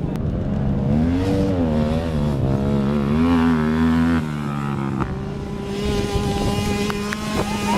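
Racing quad (ATV) engines revving, the pitch climbing and falling for the first few seconds, then dropping and holding fairly steady.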